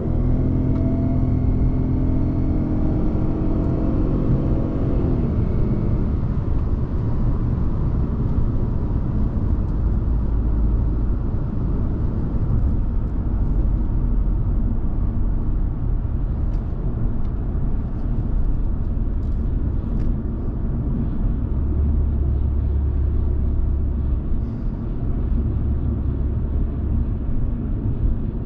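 2005 Audi A6 2.4's V6 petrol engine heard from inside the cabin, its note climbing as the car accelerates for the first five seconds or so, then fading into steady cruising with a low engine rumble and tyre road noise.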